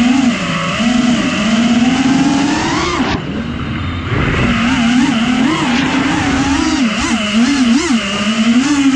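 FPV quadcopter's four brushless motors on 4.9-inch props whining. The pitch climbs for about three seconds, cuts off sharply as the throttle is chopped, then comes back with quick throttle blips that make it wobble up and down.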